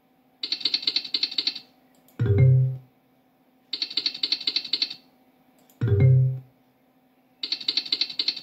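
Online video slot game sound effects over repeated spins: three runs of rapid clicking ticks while the reels spin, each lasting about a second and a half, with a short low tone between runs.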